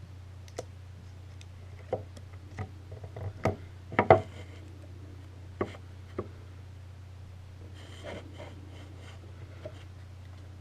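Scattered clicks and knocks of hands handling gear, about eight in all, with the loudest cluster about four seconds in, over a steady low hum.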